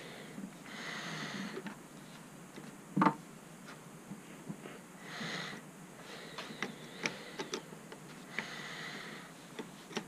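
Scattered small clicks and taps of a screwdriver and small metal and plastic parts being handled while the printer's extruder motor assembly is taken apart, with one sharper knock about three seconds in. A few soft breaths through the nose come between them.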